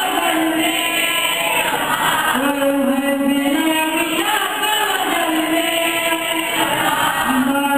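A boy singing a naat into a microphone, one voice holding long notes with rising and falling turns between them.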